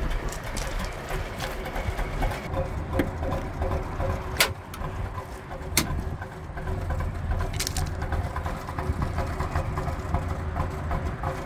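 Wind buffeting the microphone: an uneven low rumble, with a few sharp clicks, the clearest about four and a half and six seconds in.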